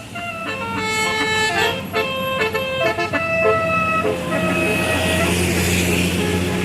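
Bus 'telolet' horn, a Basuri multi-tone horn, playing a quick melody of changing notes, several tones sounding together, for about four seconds. After that the bus engine drones steadily.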